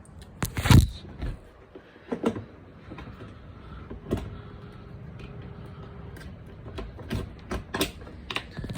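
Key being fitted into the scooter's ignition switch: a scattering of separate clicks and knocks, the loudest a little under a second in, with more spread through the rest.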